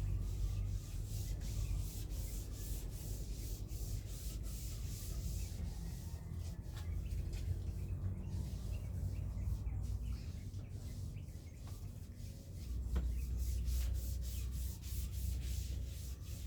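Quick, repeated scrubbing strokes of something rubbed back and forth against a surface while cleaning, over a steady low rumble.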